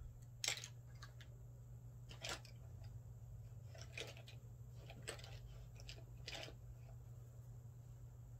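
Handling of small objects: a few short, separate clicks and rustles, the loudest about half a second in, over a steady low hum.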